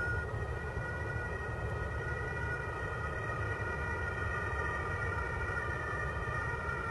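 Approaching train: a steady high-pitched whine with several tones that drift slightly in pitch, over a low rumble.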